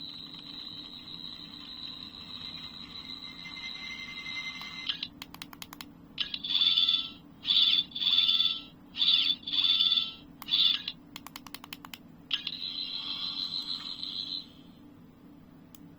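Toy sonic screwdriver (the 14th Doctor's, Character Options retail edition) playing its electronic sound effects. First a steady high whine for about five seconds, then rapid clicking, then a run of short pulsing high-pitched bursts, more rapid clicking, and a warbling whine that cuts off about a second and a half before the end.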